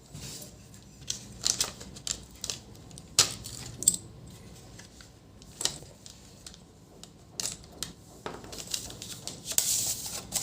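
Scattered clicks, taps and light clinks of small plastic and metal printer parts being handled while an HP LaserJet M501 fuser unit is taken apart, with a brief rustling scrape near the end.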